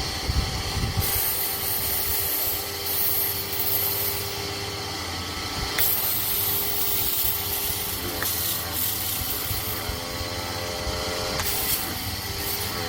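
GreenWorks 1700 psi electric pressure washer running, its motor humming steadily under a continuous hiss of water spray.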